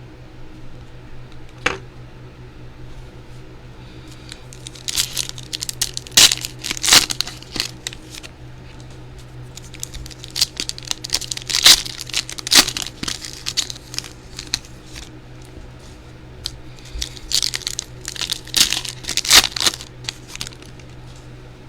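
Foil trading-card pack wrappers crinkling and tearing open in several bunches of sharp crackles, with a steady low hum underneath.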